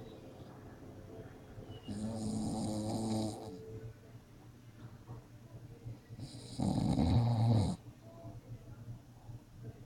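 An elderly man snoring in his sleep: two loud snores, the first about two seconds in and the second more than four seconds later, each lasting a little over a second.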